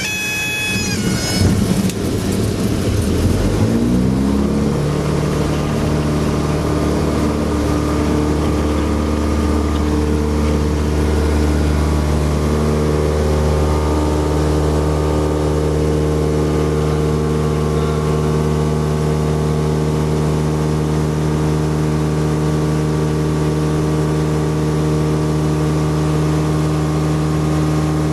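Light aircraft's piston engine and propeller heard from inside the cockpit, opening up with a rising pitch over the first few seconds, then running steadily at high power, as for the climb-out of a touch-and-go. A brief high steady tone sounds at the start and cuts off about a second in.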